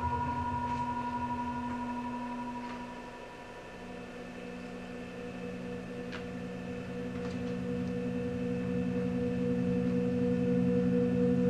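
Layered sustained drone tones: a high tone fades away in the first few seconds, then a lower chord of steady tones swells in and grows louder toward the end, with a few faint ticks.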